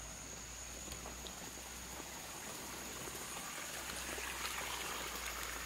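Faint outdoor ambience: a steady high-pitched insect drone over a soft hiss that grows a little louder in the last couple of seconds.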